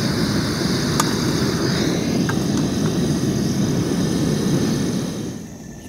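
Portable gas camping stove burner running with a steady rushing roar under a pot; it quietens near the end.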